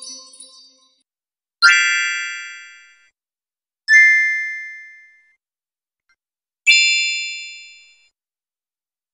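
Magic chime sound effects: the last of one fades out, then three separate bright, high dings, each struck sharply and ringing away over about a second and a half.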